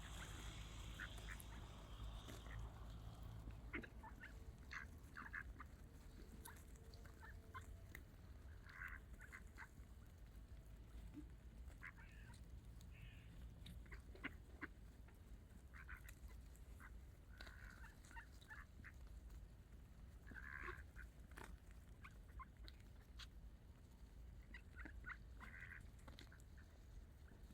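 Ducks calling faintly now and then: short, scattered calls over a steady low background rumble.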